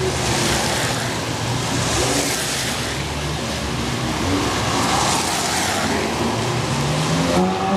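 Ferrari sports cars, an F12berlinetta and then a 458 Italia, pulling away at low speed, with tyres hissing on the wet road in swells as each car passes. An engine note rises near the end as a car accelerates.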